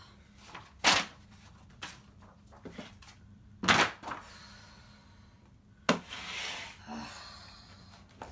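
Spiral-bound sketchbooks being handled and set down on a wooden desk: three sharp knocks a couple of seconds apart, with a brief rustle of paper after the last.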